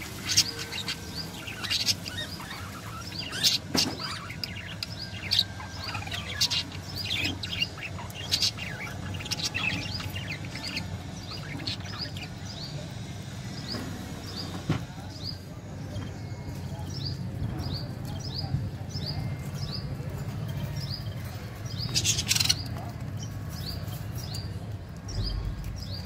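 Budgerigars chirping in short high calls, busy and overlapping at first, then a steady run of repeated chirps about two a second. Scattered louder rustles or wing flutters, the loudest about 22 seconds in, over a steady low hum.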